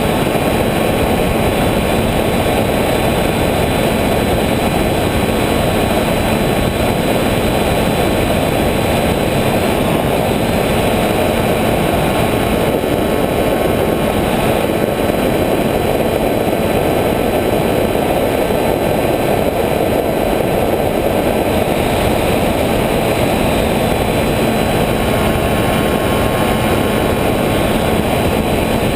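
Electric motors and propellers of an FPV model aircraft, heard from its onboard camera: a steady loud rush of propeller and air noise with a few faint steady whining tones, unchanging throughout.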